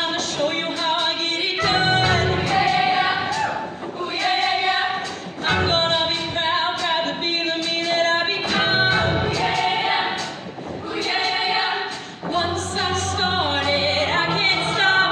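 Show choir of female voices singing together in harmony, in phrases with brief breaks, over a live band with low bass notes underneath.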